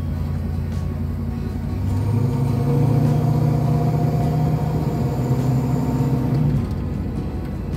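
LS V8 swapped into a 1972 Chevrolet Monte Carlo, running as the car is driven, heard from the driver's seat with the hood off. About two seconds in the engine picks up revs under throttle and holds there, then eases off near the end.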